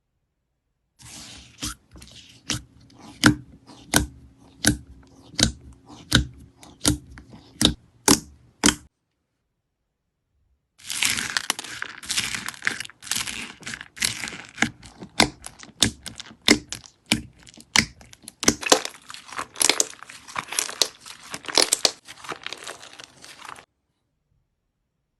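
Slime being squeezed and worked by hand: sharp pops at an even pace, about one every 0.7 seconds, then after a short break a denser run of crackling pops and crunches lasting about thirteen seconds.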